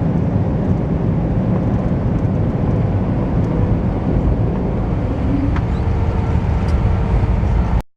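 Steady low rumble of engine and airflow noise inside the cabin of an Airbus A320 airliner.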